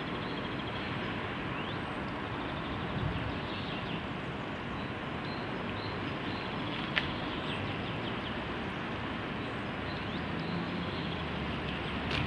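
Steady outdoor background noise with a few faint bird chirps. A low hum joins near the end.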